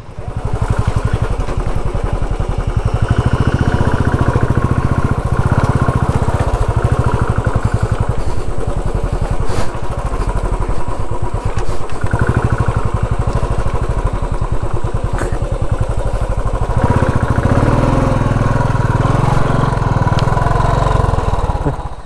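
Royal Enfield Bullet 350 single-cylinder engine running under load as the motorcycle is ridden slowly up a rough, rocky dirt trail, with a fast, even beat whose note rises and falls with the throttle.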